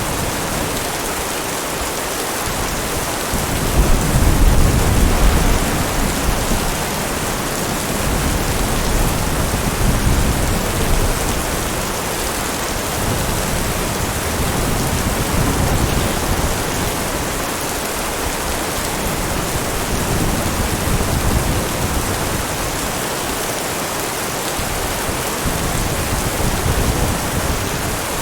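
Heavy rain falling steadily, with low rolls of distant thunder swelling in and out, the strongest about four seconds in.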